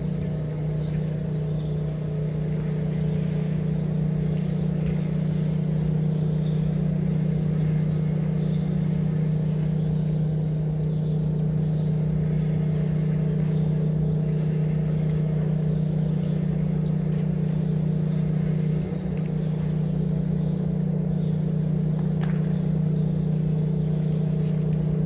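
A steady low mechanical hum at one unchanging pitch, with faint scattered ticks over it.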